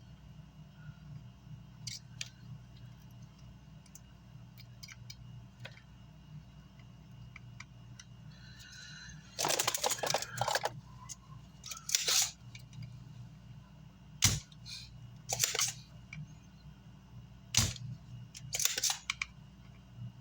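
Hand work on an amplifier circuit board: several short scratchy scraping bursts and two sharp clicks, over a steady low hum.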